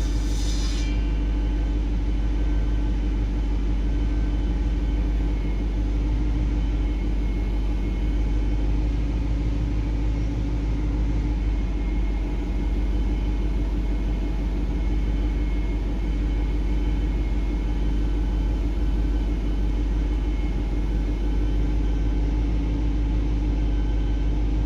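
Car engine running: a steady low rumble with a steady hum over it.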